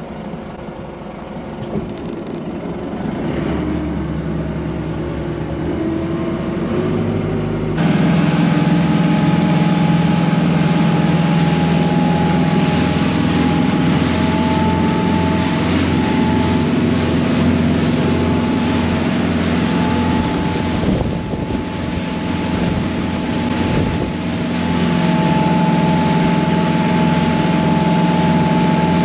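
Motorboat engine running steadily under way. It grows louder over the first several seconds, then jumps suddenly to a louder, steadier drone about eight seconds in.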